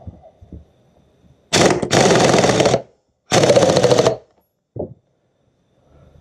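Pneumatic impact wrench hammering in two bursts, about a second each, as it runs down the nut on the pulley of a Mercury Thunderbolt 500 outboard's powerhead.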